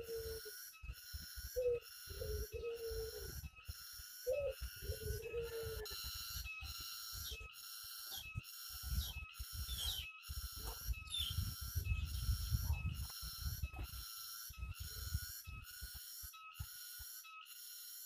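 Barbary doves cooing: several low coos, each bending in pitch, in the first six seconds. Behind them a steady high-pitched chorus pulses about twice a second, and low rumbling noise comes and goes in the second half.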